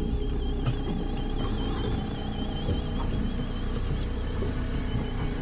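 Boat motor running steadily at trolling speed, a low rumble, with a faint high whine that wavers evenly up and down in pitch. A single sharp click about a second in.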